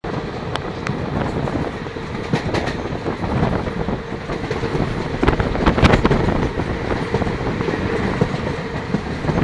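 Moving train heard from its open door: a steady rumble and rush of air with irregular sharp clicks and clacks of the wheels running over the track.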